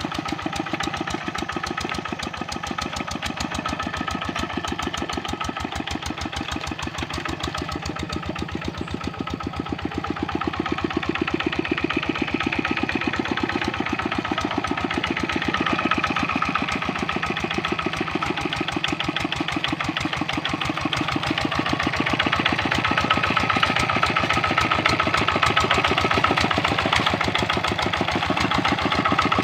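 Kubota RD65 single-cylinder diesel engine of a two-wheel hand tractor running steadily with an even firing beat, getting a little louder from about ten seconds in.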